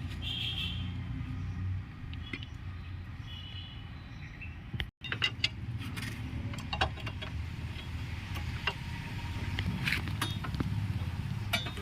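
Scattered metallic clicks and clinks of drum brake shoes, springs and hand tools being fitted onto the backing plate, over a steady low background hum. The sound cuts out for an instant about five seconds in.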